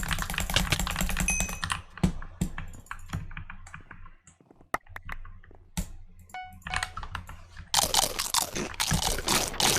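Mechanical keyboard with lubed switches and greased stabilizers being typed on fast while gaming: a dense clatter of key presses, then scattered single clicks, then another quick run of presses near the end. A few short pinging tones come in briefly in the middle.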